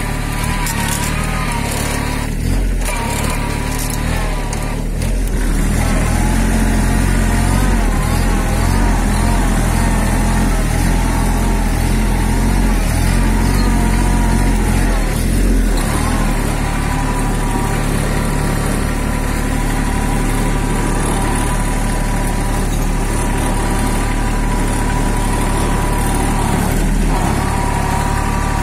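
Kubota A211 narrow tractor's three-cylinder diesel engine running steadily as the tractor drives along, pulling a tine cultivator, heard close from the driver's seat. It gets a little louder about five seconds in.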